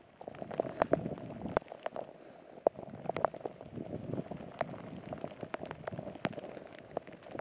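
Rain falling, with drops tapping irregularly close to the microphone over a steady patter.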